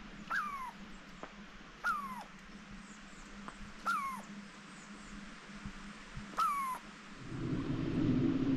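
An animal in the forest calling four times, about two seconds apart: each call is short, starts high and slides down. Near the end a steady low rushing sound comes in.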